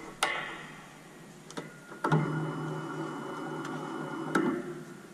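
Mechanical sounds from a small home-built lathe. A sharp metal click rings out, then two lighter clicks. About two seconds in, a steady whirring starts and runs for a little over two seconds before it ends in another click.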